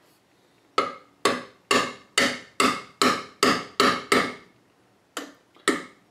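A mallet tapping a metal seal driver to drive a double-lip shaft seal into the bore of a Ford power steering gearbox's input shaft housing. There are about a dozen quick taps, roughly two a second, each with a short metallic ring, and a brief pause about four and a half seconds in.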